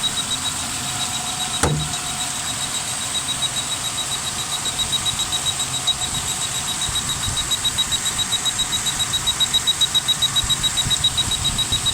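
1999 Suzuki Grand Vitara 2.5-litre V6 idling with an even, regular pulse, running on all six cylinders now that the vacuum leak that caused its misfire has been sealed. There is a faint steady high-pitched tone, and a single click about two seconds in.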